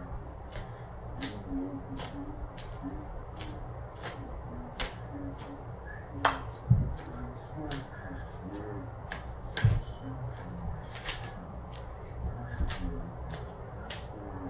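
A series of sharp clicks, about one to two a second, over a muffled television voice, with two louder thumps about six and a half and nine and a half seconds in.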